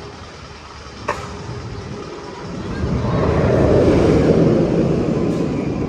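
Magnum XL 200 roller coaster train rolling past on its track: a rumble that swells to a peak and fades as it passes, after a sharp click about a second in.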